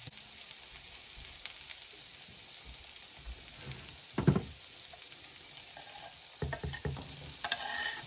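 Cubed potatoes sizzling in oil in a ceramic frying pan, a steady hiss with a louder knock about four seconds in and a few clatters as pieces are added. Near the end, chopped onion is scraped off a wooden cutting board into the pan.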